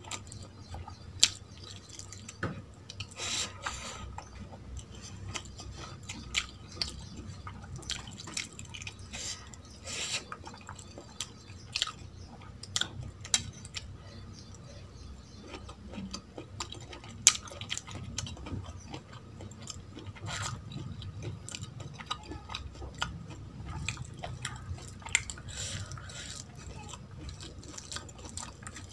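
Close-up eating sounds: chewing and wet mouth smacks of rice and chicken liver curry eaten by hand, with fingers mixing rice on a steel plate. Many short clicks throughout, a few sharper ones, about a second in and again past the middle.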